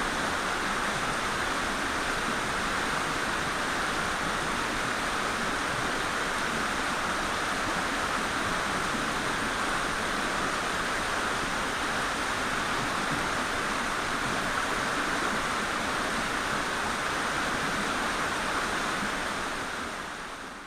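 Mountain stream rushing steadily over rocks, fading out near the end.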